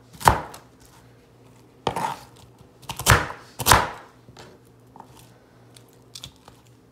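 Butcher knife chopping cabbage on a cutting board: four loud, irregularly spaced chops in the first four seconds, then a few lighter knife taps.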